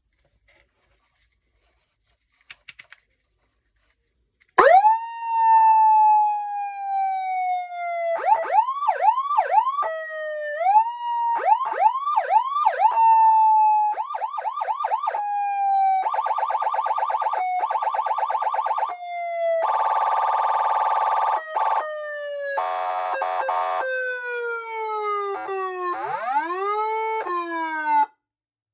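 Electronic car police siren switching through its tones: a wail that shoots up and slowly falls, runs of quick yelps, and fast pulsing warbles. It starts about four and a half seconds in, after a couple of faint clicks, and cuts off just before the end.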